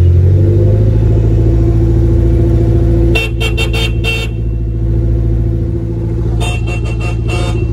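A car engine running steadily close by, heard from inside a car stopped in traffic. Two bursts of quick, repeated car-horn honks come about three seconds in and again near the end.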